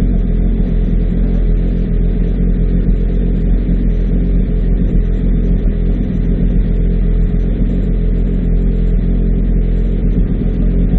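Mitsubishi MPR13 rally-raid car's engine running at one steady pitch while the car stands still.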